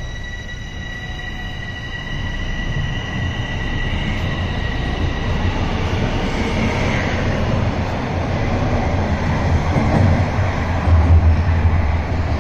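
Toronto subway train pulling out of the station and running past close by. Its low rumble grows louder as it gathers speed, and a high steady whine fades out after a few seconds.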